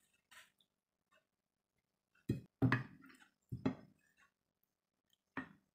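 Sardine curry being spooned from a metal pot onto a ceramic plate with a wooden spoon: a handful of sharp knocks of spoon and pot, clustered about two to four seconds in, with one more near the end.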